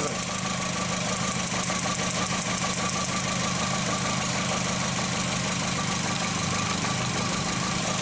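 2004 Volkswagen Jetta's 2.0-litre four-cylinder engine idling steadily while misfiring on cylinder 3. The number 4 spark plug wire is pulled back from its plug, so the spark jumps the gap with a fast, light ticking over the engine.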